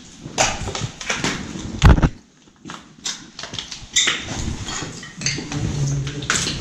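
Footsteps crunching over rubble and broken glass, with irregular clicks and clinks of debris and one heavier knock about two seconds in.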